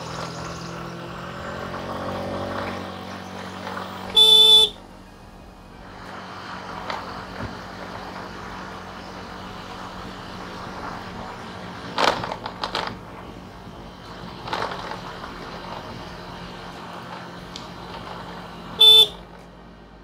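A vehicle horn honks twice: a half-second blast about four seconds in and a shorter one near the end. Between them an engine runs steadily with road noise and a few knocks.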